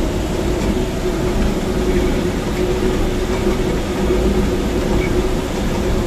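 Small water-driven turbine and generator running steadily: a loud, even machine hum with a constant tone, under the rush of the water driving it.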